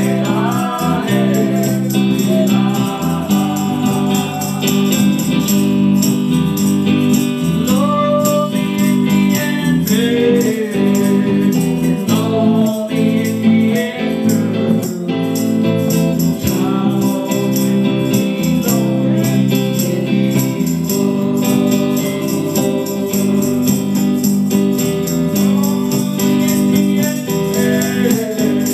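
A man sings a song into a microphone, accompanied by a steady beat on a hand-held rawhide frame drum.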